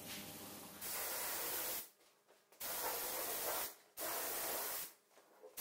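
Gravity-feed spray gun hissing as compressed air atomises high-build primer filler onto a car door. The hiss comes in passes of about a second each, cutting off sharply between them as the trigger is released.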